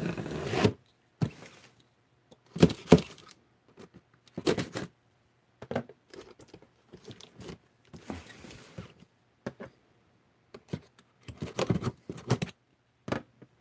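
Utility knife slitting the packing tape on a cardboard box, in short irregular scraping strokes with knocks and rustles from the cardboard being handled between them.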